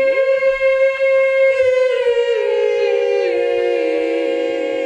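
Choir holding a long sung chord: one pitch stays steady while the other voices slide down step by step.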